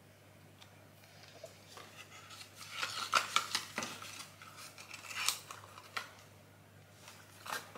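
Cardboard packaging being handled: a run of sharp clicks, taps and rustling scrapes, busiest about three seconds in, with more near five seconds and a last click near the end.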